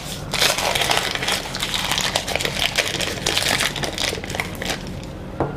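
Paper wrapper crinkling as it is peeled off a cold block of butter, a dense run of crackles that thins out about four seconds in.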